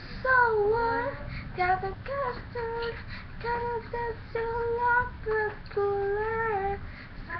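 A young girl singing a pop song unaccompanied, in phrases of held notes with short breaths between them.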